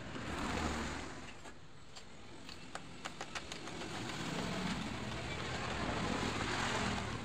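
Stick-welding arc crackling and hissing as weld metal is built up on a worn splined motorcycle shaft, with a cluster of sharp ticks in the middle and a steadier, louder hiss in the second half.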